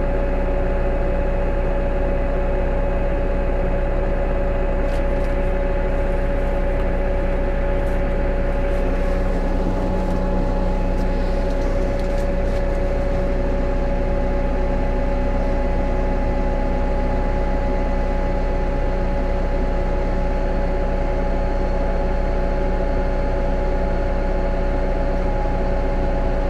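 New Holland T5.120 tractor's diesel engine running at a steady speed, a constant even hum, with a few faint clicks between about five and thirteen seconds in.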